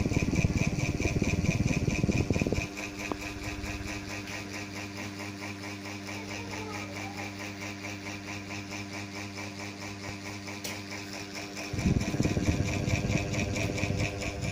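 Mini ceiling fan running with a steady motor hum and a fast, even pulsing whir. A louder low rumble covers the hum for the first two and a half seconds and comes back about twelve seconds in.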